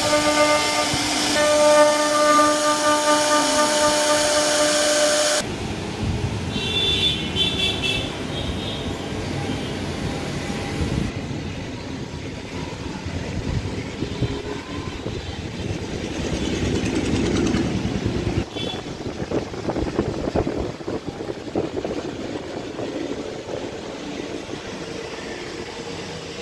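CNC router spindle running steadily with a whine made of several tones as its bit cuts grooves into a wooden panel. The whine cuts off suddenly about five seconds in, leaving a lower, rougher noise with no whine.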